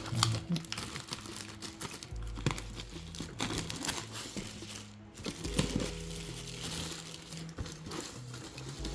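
Box packaging being handled and opened by hand, a run of crinkling and rustling crackles, over background music with a steady bass line.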